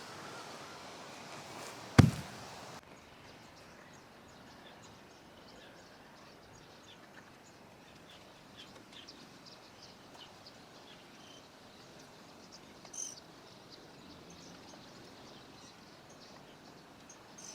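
One sharp knock about two seconds in, then quiet outdoor background with faint, scattered insect or bird chirps and ticks.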